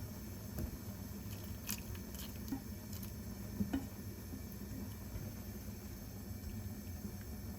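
Kitchen food-preparation sounds: soft squishing of food being handled or stirred, with a few light clicks, over a steady low hum.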